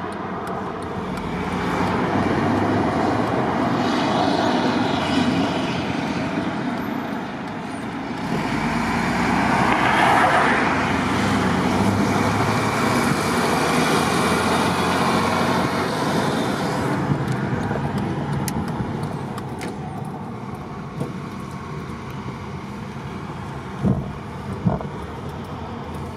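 Road traffic noise from inside a moving car following heavy army trucks: a steady rumble of engines and tyres that is louder for the first two-thirds and then eases, with a few sharp knocks near the end.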